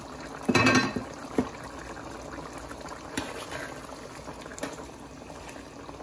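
Thick tomato sauce bubbling at a boil in a pot while a metal spoon stirs it. A short, loud clatter comes about half a second in, followed by a few light knocks.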